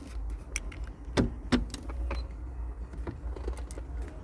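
Scattered light clicks and knocks of plastic trim parts being handled and slid up into place around a car's shift lever, over a low steady rumble.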